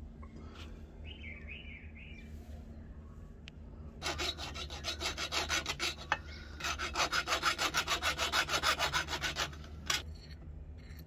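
Hand file scraping along the edge of a small steel blade clamped in a bench vise, in quick back-and-forth strokes. The filing starts about four seconds in and comes in two runs with a brief pause between them.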